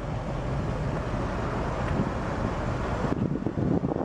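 Wind buffeting the microphone: a rough, uneven rumble with hiss. About three seconds in, the hiss thins out and the rumble turns gustier.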